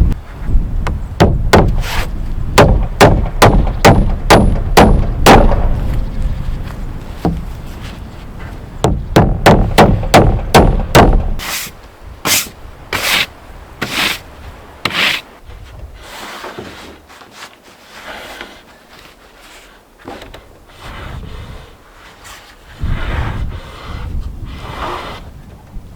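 Quick runs of sharp knocks on wood with wind rumbling on the microphone for about the first eleven seconds, then a handful of single, spaced knocks and quieter handling sounds.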